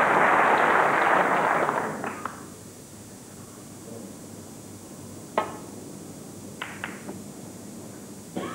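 Audience applause fading away over the first two seconds, then a hushed hall. A snooker cue strikes the cue ball with a sharp click about five seconds in, followed by a few quieter clicks of balls hitting balls and cushion as the cue ball runs into the reds.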